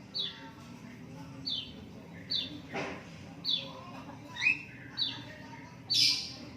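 Lovebird chick chirping: a run of short, high, falling chirps repeated about once a second, the last one louder and harsher. A soft knock comes near the middle.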